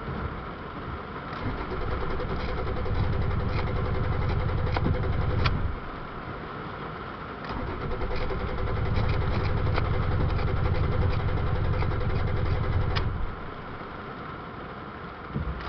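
Toyota Tacoma engine being cranked by its starter in long attempts, twice for about five seconds each with pauses between and a third attempt starting near the end, without settling into a steady run: a hard start after the truck stalled in water.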